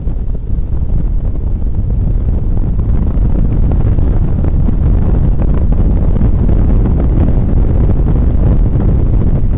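NSX's V6 engine, with road and wind noise, heard inside the cabin as a steady low rumble while the car accelerates on track; it grows louder over the first few seconds, then holds.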